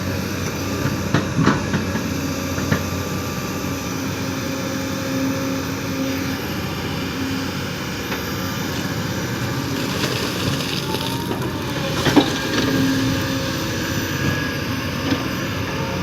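Kobelco SK220 hydraulic excavator working sand: steady diesel engine and hydraulic noise, with a few sharp metal clanks, several in the first three seconds and one about 12 seconds in.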